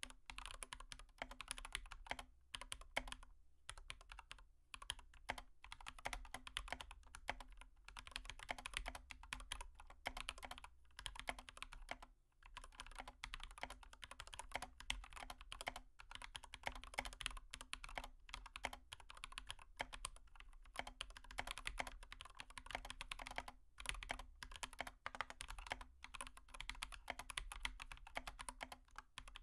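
Faint, rapid, irregular clicking and tapping with a few brief pauses, over a low steady hum.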